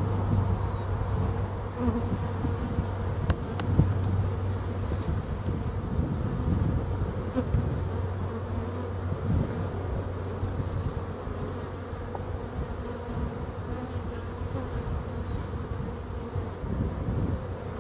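A honeybee colony buzzing steadily over an open hive with its frames exposed. A few sharp clicks about three seconds in come from the wooden frames being worked loose.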